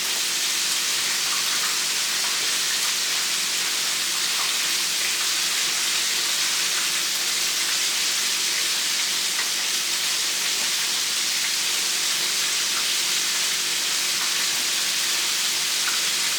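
Breaded chicken drumsticks deep-frying in hot canola oil, a steady even sizzle.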